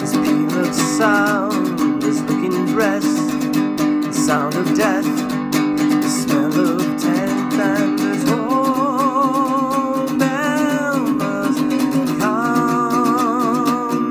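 Baritone ukulele strummed steadily, with a man singing over it. In the second half he holds long notes with vibrato.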